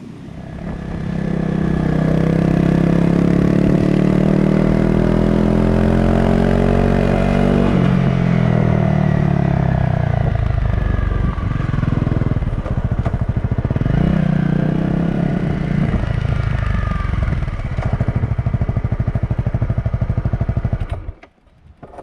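Honda CRF250 Rally's single-cylinder engine under way, heard on the bike: the revs climb steadily for several seconds, drop sharply at a gear change about eight seconds in, then rise and fall with the throttle. The sound cuts off suddenly near the end.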